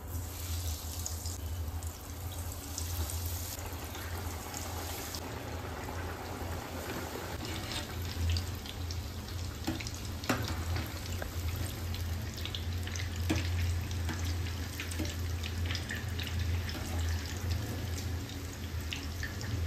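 Bread rolls deep-frying in hot oil: a steady sizzle with scattered crackles, over a steady low hum.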